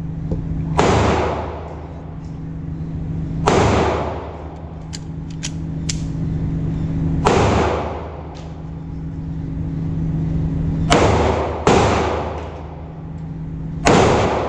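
Six pistol shots at irregular intervals, each sharp crack followed by a long echoing decay off the walls of an indoor range. A steady low hum runs underneath.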